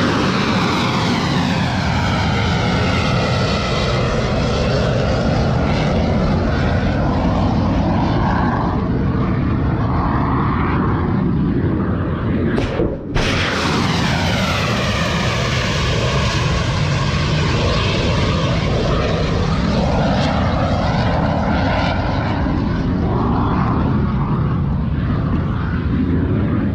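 Ship-launched missile's rocket motor running, a loud continuous rushing roar with slow sweeping, hollow shifts in its tone. It breaks off briefly about halfway through, and a second launch's roar follows.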